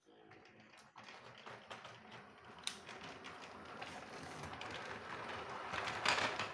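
Playmobil battery-powered RC train running on plastic track: a steady motor whir with rapid, irregular clicking of the wheels over the rail joints. It grows louder as the train nears and is loudest about six seconds in, as it passes close by.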